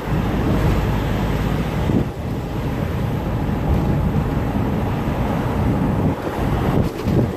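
Car driving along a road, heard from inside the cabin: steady low road and engine noise with wind buffeting the microphone.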